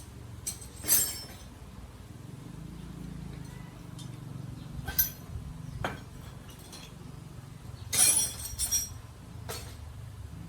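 Sharp clinks and knocks, about six spread irregularly, the loudest about a second in, five seconds in and eight seconds in, over a steady low hum.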